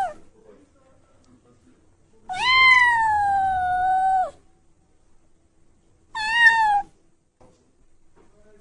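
Kitten meowing: the end of one meow at the very start, then one long high-pitched meow of about two seconds, and a short meow about six seconds in.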